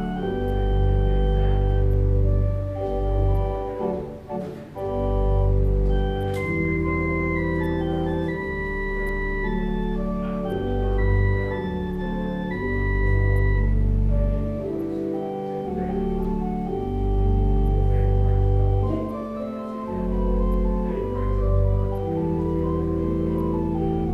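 Church organ playing slow, sustained chords over deep pedal bass notes, with a high held melody line in the middle.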